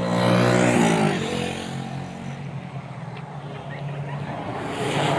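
A motor vehicle passing close by, its engine pitch dropping as it goes past about a second in, over a steady low engine hum; another vehicle approaches near the end.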